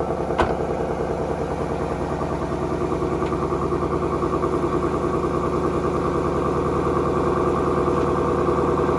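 2019 Ford Mustang GT's 5.0-litre V8 idling steadily through its stock exhaust shortly after its first cold start. There is a single short click about half a second in.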